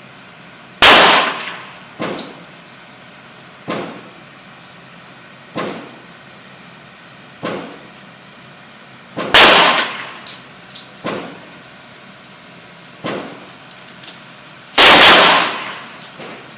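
Three loud .357 Magnum revolver shots from a Taurus Model 66, about eight and a half and then five and a half seconds apart, each ringing off briefly. Fainter sharp cracks come between them, about every two seconds.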